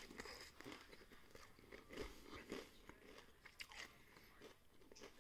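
Faint, irregular crunching of a person chewing tortilla chips topped with queso dip.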